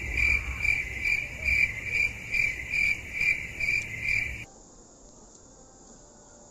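Cricket-like chirping: a high pulsing chirp repeating about two and a half times a second, which cuts off abruptly about four and a half seconds in.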